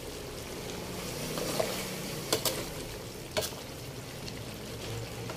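Chicken and vegetables in thick sauce simmering and sizzling steadily in a metal wok, with a few sharp taps of a metal ladle against the pan.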